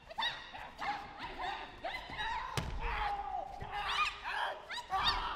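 Taekwon-do performers' sharp, high-pitched shouts (kihap), many in quick succession, with the heavy thud of a body hitting the padded mat about two and a half seconds in and another near the end.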